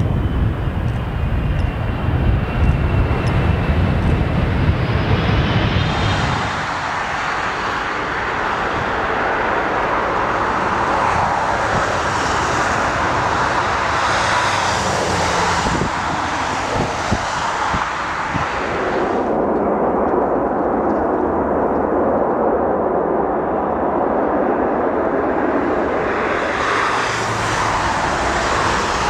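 Jet engines of large airliners landing, in a series of clips. It opens with a Boeing 777 rolling out after touchdown, with a deep rumble for the first six seconds or so. Then comes the steady jet noise of an Airbus A340 and another Boeing 777 on final approach, and the sound changes abruptly at each cut.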